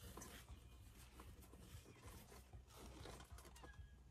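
Near silence: a faint steady low hum with a few soft rustles and ticks.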